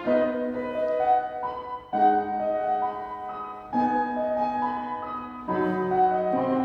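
Live piano and violin ensemble playing a slow piece; the piano strikes a new chord four times, about every two seconds, each ringing on under the sustained notes.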